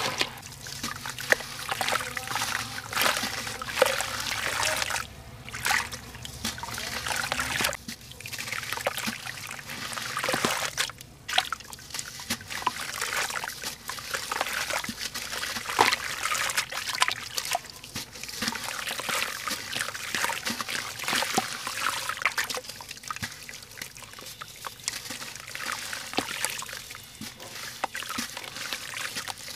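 Hands crumbling soft sand-cement lumps into a basin of water: gritty crumbs trickling and dropping into the water, with small crackles, splashes and sloshing as the hands work in it.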